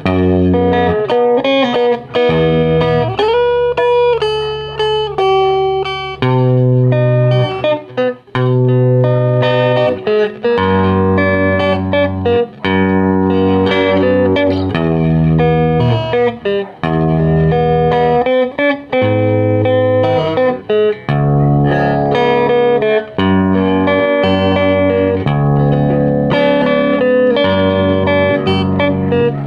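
Electric guitar, a Stratocaster-style solid body, playing a melodic lead line with a string bend about three seconds in, over sustained bass notes that change every second or two.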